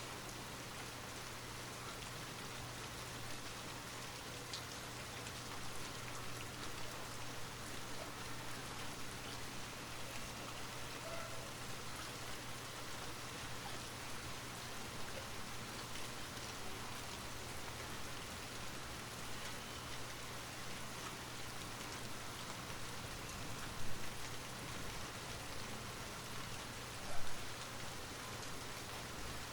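Light rain falling steadily, an even patter of raindrops with scattered individual drop ticks. Near the end come two brief, louder single sounds a few seconds apart.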